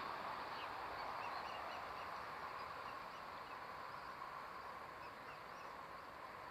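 Outdoor ambience: a steady hiss with faint, scattered high chirps of small birds.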